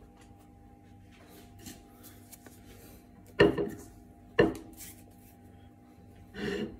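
Hands kneading a large mound of leavened baozi dough: two loud thumps about a second apart as the dough is pressed and slapped down, then a short rubbing, tearing sound near the end as a piece is pulled off.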